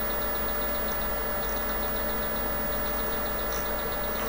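Steady fan and electrical hum from running bench electronics, such as the logic analyzer, with a faint, regular high ticking over it.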